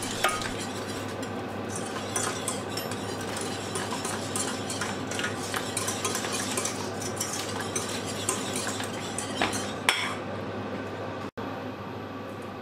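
Wire whisk scraping and clicking against the sides and bottom of a stainless steel saucepan as a thick peppercorn cream sauce is whisked, a rapid run of small metal scrapes over a steady low hum. The whisking stops near the end.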